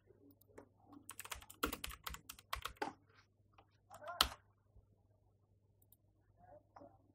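Computer keyboard typing: a quick run of keystrokes over about two seconds, then a single louder click just after four seconds.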